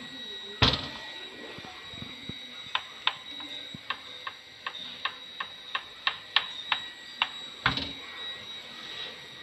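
A run of light, sharp mechanical clicks, about three a second for around four and a half seconds, between two louder knocks, over a faint steady high-pitched tone.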